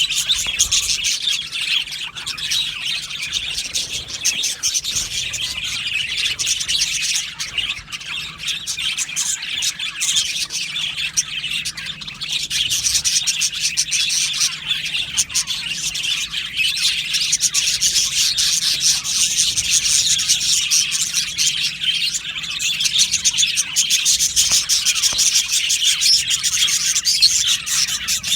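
A flock of budgerigars chattering and chirping together continuously, many overlapping warbles and tweets at once.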